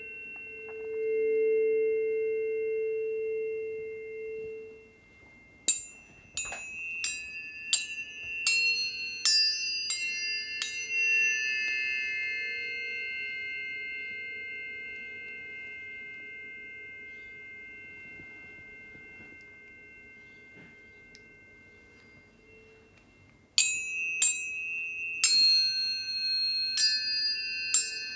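Planetary tuning forks ringing with steady pure tones. A held low tone fades a few seconds in. A quick run of about a dozen bright metallic strikes follows, their high ringing slowly dying away, and a second run of strikes starts near the end.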